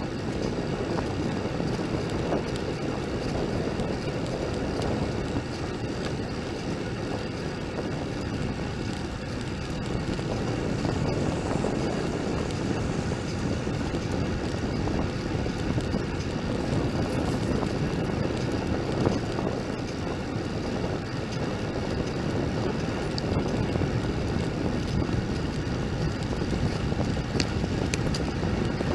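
Steady wind rush over a bicycle-mounted camera's microphone, with tyre and road noise from the moving bike.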